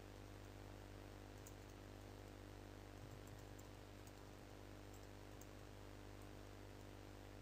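Near silence: faint, scattered computer keyboard keystroke clicks over a steady low electrical hum.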